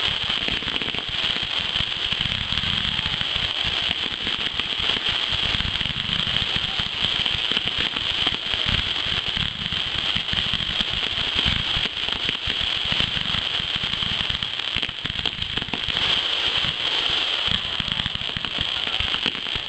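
Fireworks finale, with a wall of firework cakes and aerial shells going off together. The result is a dense, unbroken crackle of many rapid pops and bursts with no pause.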